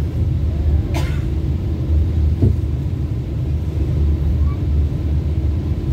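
Steady low rumble of trains heard inside a passenger coach while another train runs past on the next track, with a sharp click about a second in.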